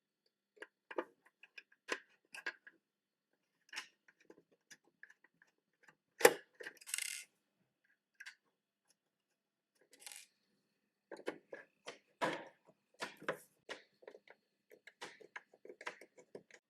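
Side screws of a DVR's metal casing being undone with a small crosshead screwdriver and handled: scattered small metallic clicks and ticks, with a sharper click about six seconds in followed by a short scrape.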